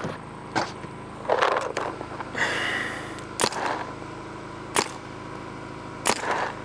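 Planet Eclipse Geo paintball marker firing single shots, each a sharp crack, about five in all, spaced a second or more apart, with a brief buzzing hiss about two and a half seconds in.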